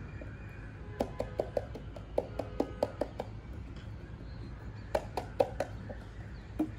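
Yellow plastic container of cornstarch knocked and shaken over a plastic tub to get the packed powder out: a quick run of about ten hollow knocks starting about a second in, then a second shorter run of knocks later on.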